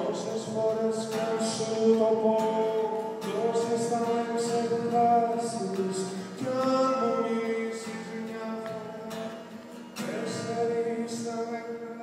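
Male voice singing long held notes over a strummed acoustic guitar.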